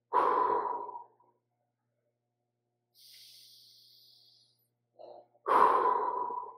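A man's breathwork breathing: two forceful exhales, each about a second long, starting suddenly and fading, about five seconds apart. A faint hissing breath comes between them.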